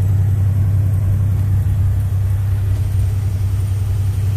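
Class A semi-truck's diesel engine, heard from inside the cab, running at a steady speed while the truck drives in gear: an even, low drone that neither rises nor falls.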